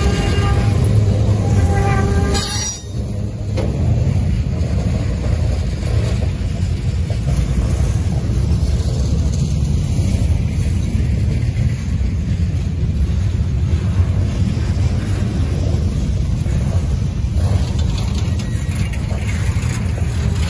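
Freight train of lumber-loaded centerbeam flatcars rolling past, a steady rumble of wheels on rail that is strongest in the low end. A steady pitched whine runs through the first two seconds and cuts off, followed by a brief dip in loudness.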